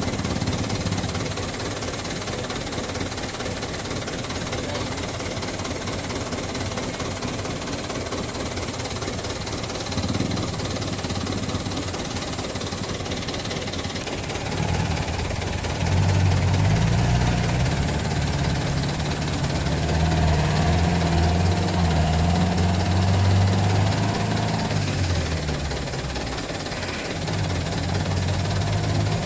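Diesel engine of a loaded Mitsubishi PS100 palm-oil truck straining to pull out of mud: a steady run, then about halfway through it revs louder with its pitch wavering, drops back, and picks up again near the end.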